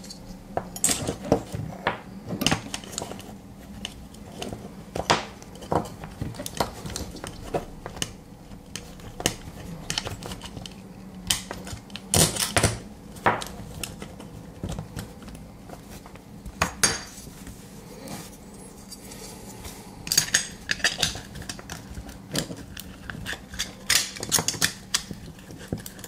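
Irregular clicks, taps and light scrapes of a circuit board and LCD module being handled and pushed into a blue aluminium watt-meter case, metal and plastic knocking against each other.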